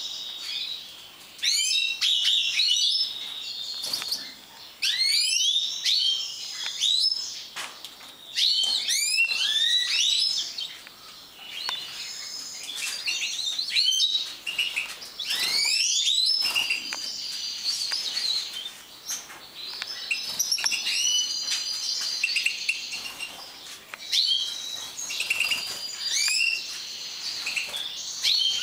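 Several caged European goldfinches of the large 'major' form singing and twittering: quick rising chirps and trills, coming in phrases a few seconds long with short breaks between them.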